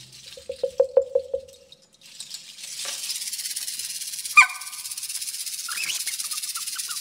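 Live hand percussion: a run of quick pitched taps that speed up and die away, then a steady high rattling hiss, like a shaker or rainstick. A sharp knock and a few short rising whistles sound over the hiss in the second half.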